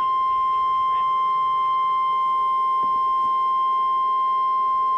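NOAA Weather Radio's 1050 Hz warning alarm tone: a single steady, unbroken high beep at constant loudness. It is the alert that comes before a National Weather Service warning broadcast.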